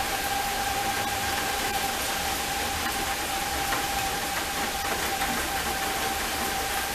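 Steady rain hiss with the thin, steady tone of a distant Federal Signal 2001-SRNB tornado siren sounding under it.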